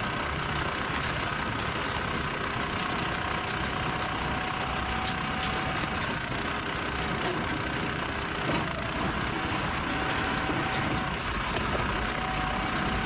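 Engine-powered log splitter running steadily, with a steady whine over the engine noise.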